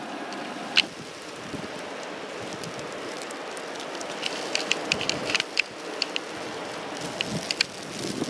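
Blizzard wind and blowing snow hiss steadily. Scattered sharp ticks come thicker in the second half.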